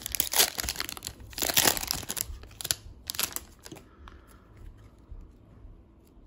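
Foil wrapper of a 2022 Panini Prizm Baseball retail pack crinkling and tearing as it is ripped open by hand: a run of sharp crackles that dies away after about four seconds, leaving only faint ticks as the cards are handled.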